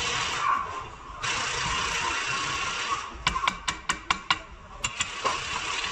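Mechanic's hand tools working on metal: a quick run of about seven sharp clicks a little past halfway and two more near the end, over a steady hiss.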